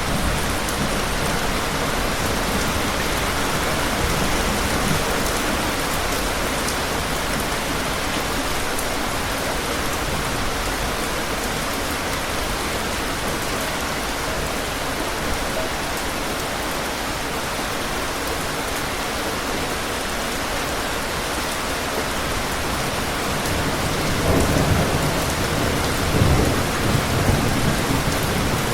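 Steady rain with distant thunder. A low rumble of thunder swells in the last few seconds.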